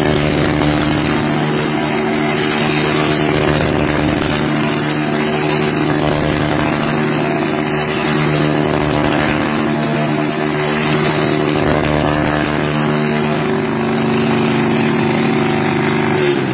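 Motorcycle engine held at steady high revs with an even, unchanging pitch, dropping off right at the end.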